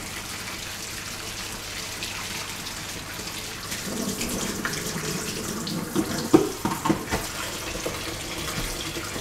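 Kitchen tap running steadily, the stream splashing into a stainless steel sink and down the open drain as it is left on to bring the warm water through. A few short knocks about six to seven seconds in.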